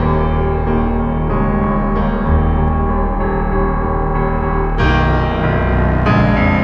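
Background piano music: held chords that change every second or two.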